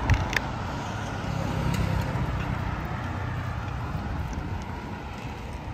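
Road traffic noise from cars going by on the street alongside: a steady low hum and rush, a little louder around the middle. Two short clicks come just after the start.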